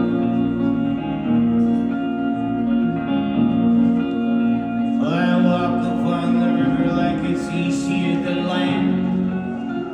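Live acoustic guitar song played with fingerpicked notes, a man's singing voice coming in about halfway through.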